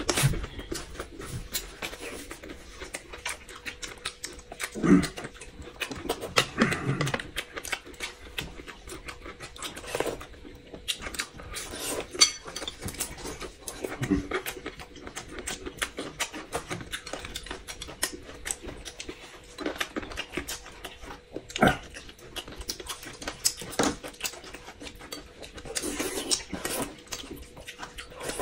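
Slurping and chewing as two people eat soup and strips of bamboo shoot and egg, in irregular bursts, with sharp clicks of spoons and chopsticks against glass bowls.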